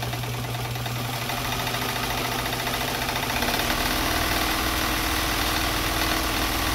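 Electric-driven Japanese class 15 sewing machine running steadily with no fabric under the foot: an even motor hum under the fast rhythm of the needle mechanism, growing a little louder about three and a half seconds in. It has just been oiled and sounds better for it.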